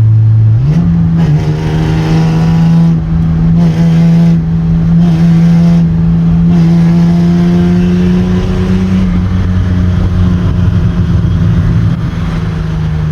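Car engine droning at steady revs while driving. The engine note rises about a second in, holds steady, and drops back near the end as the revs ease off.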